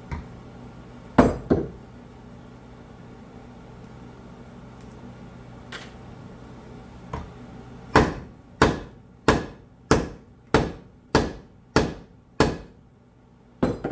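Heavy hammer blows driving a maple wedge into the top of a hickory axe handle to seat a Plumb rafting axe head. A few scattered strikes, then a steady run of about eight sharp blows roughly 0.6 seconds apart, and one more near the end, as the wedge is driven until it stops making progress.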